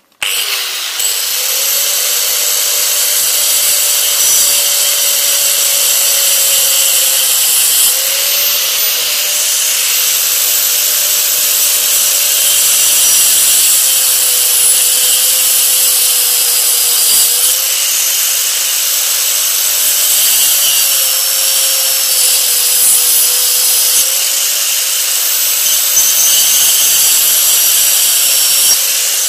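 Angle grinder with a disc switched on right at the start and cutting into the end of a wooden hammer handle. It runs steadily with a high whine, and the motor note sags and recovers several times as the disc bites into the wood.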